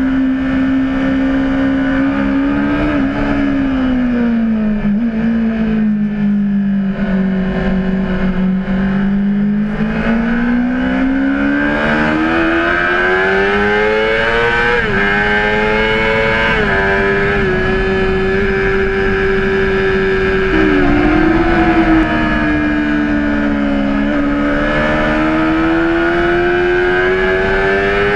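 Honda CBR600RR's inline-four engine under way at speed: the revs fall for several seconds, climb again with a couple of quick dips at gear changes, then ease off and rise once more near the end.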